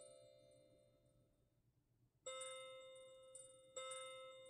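Recorded clock chimes played through a 3D-printed clock's small twin speakers: the last notes of the hour melody ring away, then after a short pause two single bell strikes a second and a half apart begin counting out the hour.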